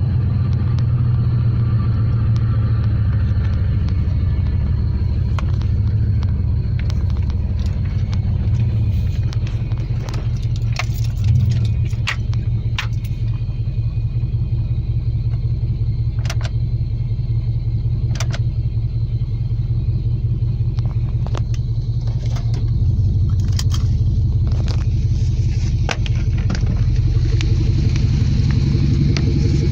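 Engine idling steadily with a low rumble, with scattered light clicks and taps over it and a brief louder knock about eleven seconds in.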